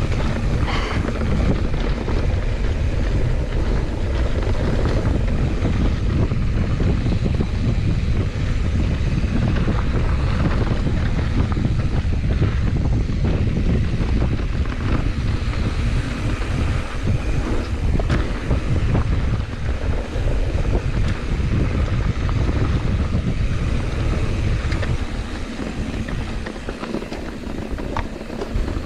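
Wind rumbling over the microphone as a mountain bike rolls fast down a dirt trail, with tyre noise on the dirt and occasional clicks and knocks from the bike over bumps. It eases off slightly near the end.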